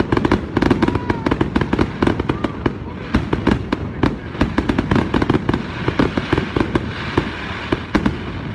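Aerial fireworks display: a rapid, unbroken string of cracks and bangs, many each second.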